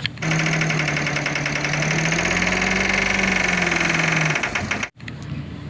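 Truck engine sound effect, running steadily with a fast even knock and a slight rise and fall in pitch. It cuts off abruptly about five seconds in.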